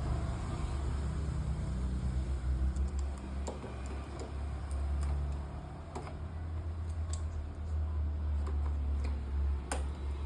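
Scattered light clicks and taps of things being handled, over a steady low rumble.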